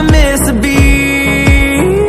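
Background pop music with a steady beat and a long held note in the melody.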